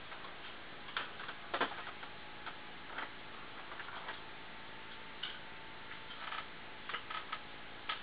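Hard disk drive ticking and clicking at irregular intervals as its heads seek, with a loud double click about a second and a half in and a quick cluster of clicks near the end.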